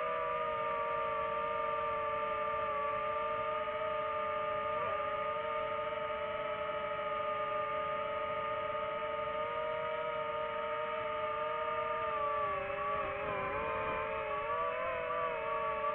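Quadcopter drone's propellers whining steadily in several close tones that shift slightly as it manoeuvres, wavering in pitch near the end.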